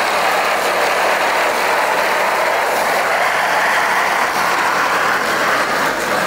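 Steady vehicle noise: a loud, even rush with no clear engine note and no single event standing out.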